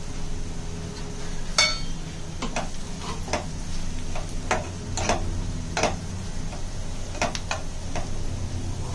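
A spatula stirring onion, ginger and garlic frying in oil in a pan, clicking and scraping against the pan at irregular intervals, over a steady low hum.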